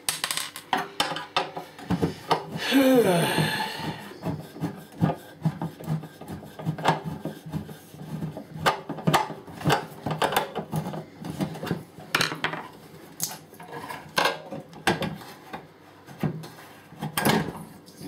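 Irregular metallic knocks, clinks and scraping from hands working inside a microwave oven's sheet-metal case to free the transformer. About three seconds in comes one short squealing scrape that falls in pitch.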